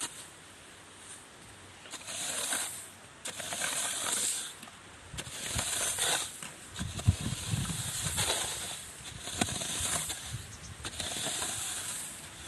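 Repeated rustling swishes of dry rice grains being spread out to dry, each about a second long, with dull thumps underneath from about five seconds in.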